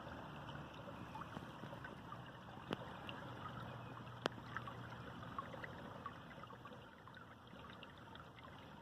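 Faint trickling and gurgling of a partly frozen woodland stream running under the ice, with two sharp clicks a second and a half apart near the middle.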